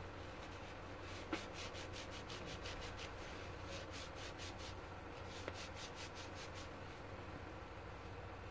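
Tissue rubbing over the blades of a laptop CPU fan's impeller as it is wiped clean of the dust that had kept the fan from turning. Faint, quick wiping strokes come close together through the middle.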